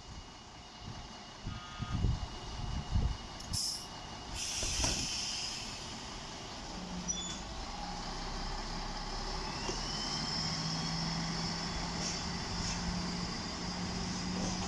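MÁV class 117 (Bzmot) diesel railcar moving off. A few low thumps and a burst of air-brake hiss as the brakes release, then the diesel engine drones steadily under load, rising slowly in pitch as the railcar picks up speed.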